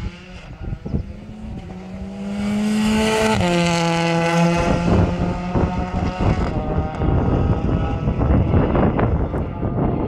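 Rally car passing at speed on a tarmac road. Its engine note climbs as it approaches, drops sharply a little over three seconds in as it goes by, and then gives way to a loud, rough rushing noise as it moves away.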